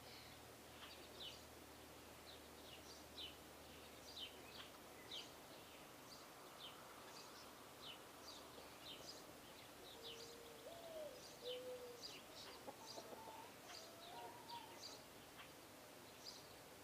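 Small birds chirping faintly, many short, high, quick chirps scattered throughout. About ten seconds in comes a lower call that rises and falls, followed by a few short low notes.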